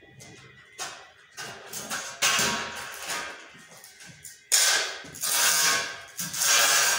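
Galvanised steel drywall profiles scraping and clattering against each other as one is slid off a pile and lifted, in several loud irregular bursts, the longest near the middle and near the end.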